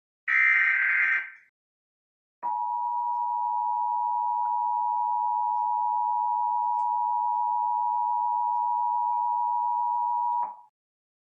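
The last burst of an Emergency Alert System SAME digital header, a short buzzy data screech lasting about a second. After a second of silence comes the EAS attention signal: two steady tones near 853 and 960 Hz sounded together for about eight seconds, then cut off sharply, announcing the spoken test message.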